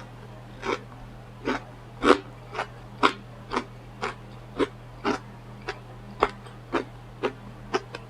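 A person chewing food close to the microphone, with wet mouth smacks coming regularly about twice a second.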